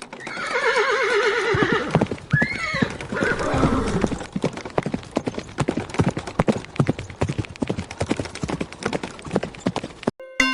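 A horse neighing in a long quavering whinny, with a second, shorter call about two seconds in, then hooves clip-clopping in a steady walking rhythm until the sound cuts off suddenly near the end.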